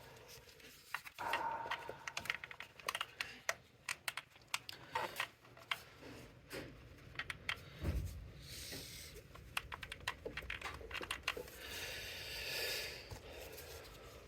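Irregular light clicks and handling rustle as plastic cable clips are pressed into place by hand, with one dull knock about eight seconds in.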